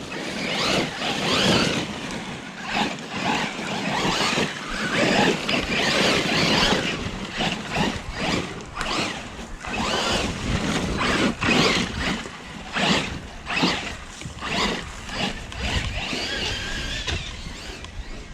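Electric RC side-by-side (Losi RZR Pro R) being driven hard across a grass lawn. Its motor whines up and down in repeated bursts of throttle, and its tyres tear through the grass.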